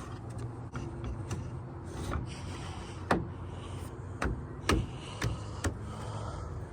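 A few sharp knocks, about four, spread over several seconds, the loudest about three seconds in, over a steady low hum.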